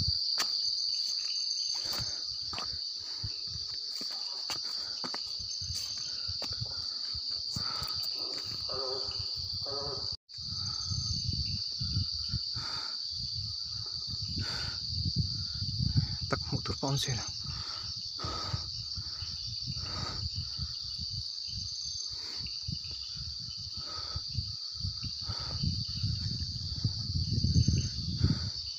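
A steady, high-pitched chorus of night insects, with irregular rustles and knocks laid over it. The sound cuts out for a split second about ten seconds in.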